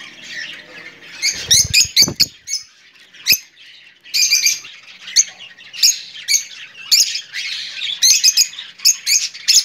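Lovebirds chattering: many rapid, shrill chirps and squawks in quick bursts throughout. A couple of low thumps come about one and a half to two seconds in, and a sharp click a little after three seconds.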